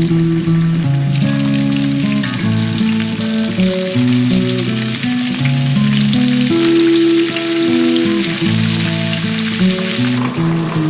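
Breaded pieces deep-frying in hot oil in a wok: a dense, crackling sizzle that starts about a second in and cuts off suddenly near the end. Soft background music with a melody of held notes plays underneath.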